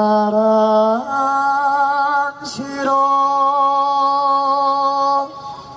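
A singer's amplified voice holding long, steady notes of a Javanese langgam song, with a step up in pitch about a second in. A short break with a hiss comes near the middle, then one long held note that stops shortly before the end.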